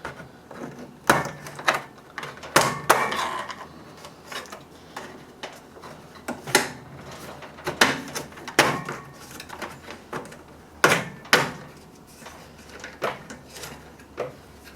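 Plastic trim cover on a microwave being pried loose with a screwdriver: irregular sharp clicks, snaps and knocks of plastic and metal.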